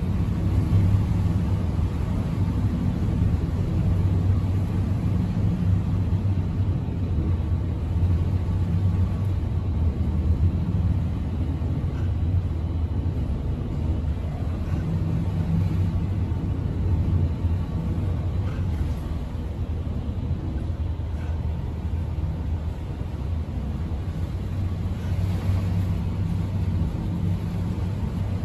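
Steady low rumble and hum inside an oil tanker's wheelhouse as the ship runs through heavy storm seas.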